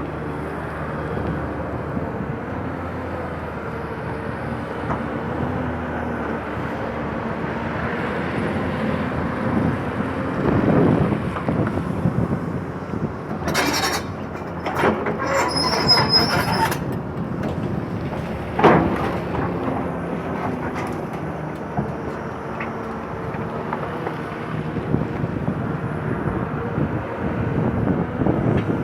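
Excavator's diesel engine running steadily. About halfway through come several sharp metal clanks with a high-pitched metallic squeal, then one more loud knock a couple of seconds later.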